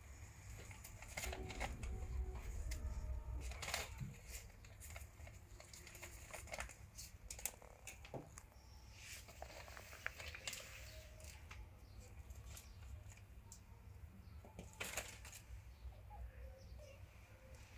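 Kittens scuffling against grain sacks and a plastic sheet on a concrete floor: faint, scattered rustles and light scratches over a low steady rumble.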